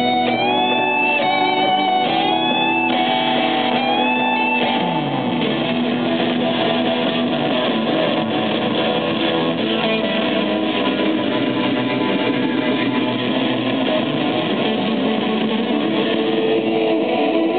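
Guitar solo played through a PA: bent, wavering single notes for the first few seconds, then a denser, strummed passage.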